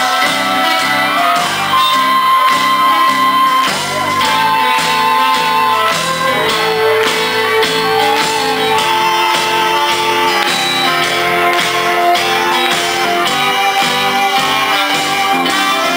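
Live indie rock band playing an instrumental stretch of the song: guitar, keyboards and drums, with long held melody notes over a steady beat, heard from within the audience.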